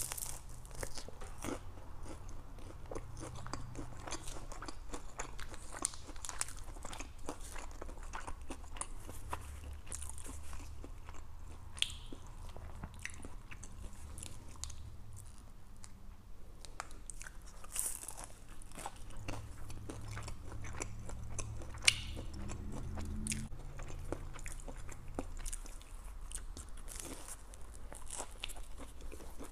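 Close-up eating sounds picked up by a lapel microphone: crunchy bites into a fried egg roll and chewing, with small crackles of the crispy wrapper as it is bitten and torn. Two sharper cracks stand out, about twelve and twenty-two seconds in.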